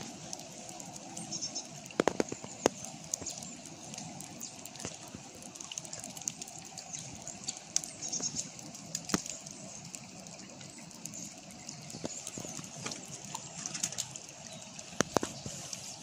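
Small forest brook running steadily between snow banks, with songbirds singing faintly in the background. A few sharp ticks stand out above the water, the loudest about two seconds in and again near the end.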